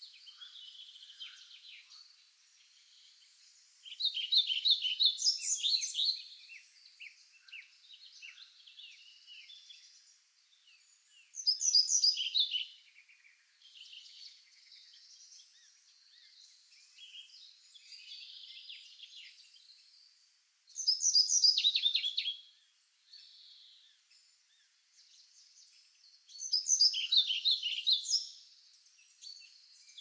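Woodland birdsong: a songbird sings a loud, rapid phrase of repeated notes four times, roughly every six to nine seconds. Quieter chirps of other birds fill the gaps.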